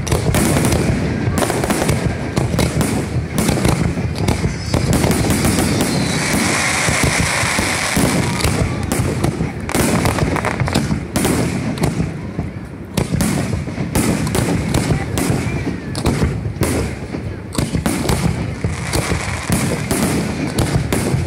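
Fireworks show: aerial shells going off in rapid succession, many bangs overlapping, with a stretch of steady high hiss about six seconds in.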